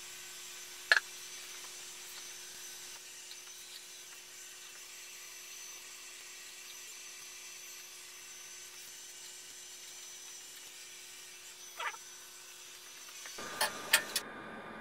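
A small fan running steadily, a hiss with a faint low hum. A sharp click comes about a second in, and a few more clicks near the end, where the steady sound changes to a rougher, lower hiss.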